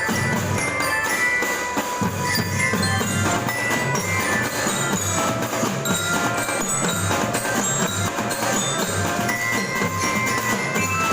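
A school marching drum band playing: metal bell-lyres ring out a melody of short notes over steady beating drums.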